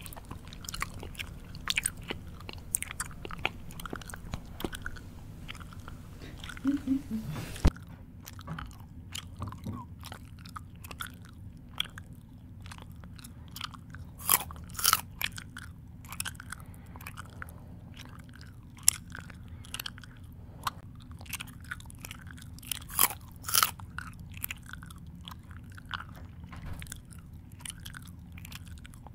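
A mouth chewing crunchy food up close: irregular wet smacks and crisp crunches, with louder bursts of crunching about halfway through and again about three-quarters of the way in. The background changes abruptly about a quarter of the way in.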